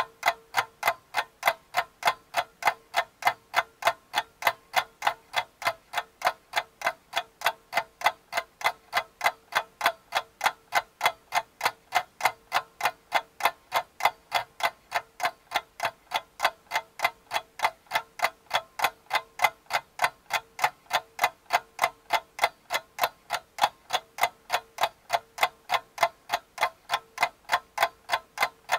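Steady clock-like ticking, about three even ticks a second, over a faint steady tone.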